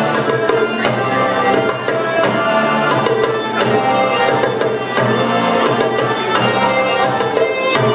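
Instrumental music: sustained melodic notes over a run of quick percussion strokes.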